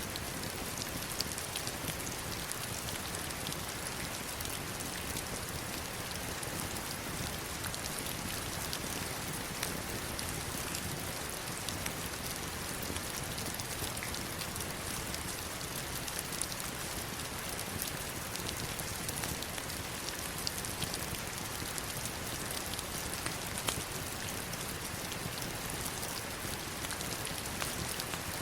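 Heavy rain falling on stones and river water: a steady, dense hiss flecked with many sharp individual drop ticks.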